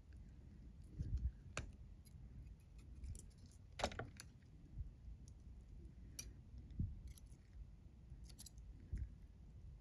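Scattered faint clicks and light metallic clinks of a needle driver and tissue forceps being handled during suturing, the sharpest about four seconds in, with soft low bumps of handling.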